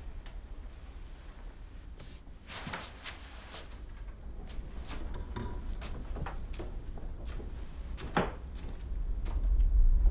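Scattered knocks and clicks, irregularly spaced, the loudest about eight seconds in, over a low rumble that swells near the end: tense horror-film sound effects in a quiet house.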